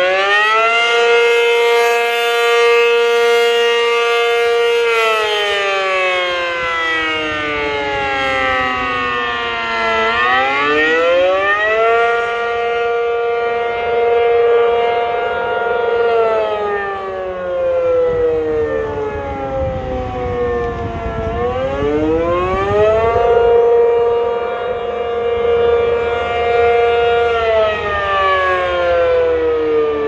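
ACA Penetrator-50 rotating tornado siren sounding the attack signal. Its tone rises, holds level for a few seconds, then glides slowly down, three times over. The loudness swells and fades as the turning horn sweeps past.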